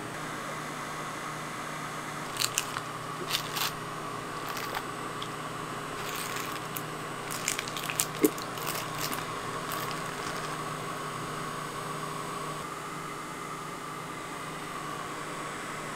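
A cotton candy machine's motor hums steadily. Clusters of sharp clicks and crinkles from clear plastic cups being handled come a couple of seconds in and again around the middle.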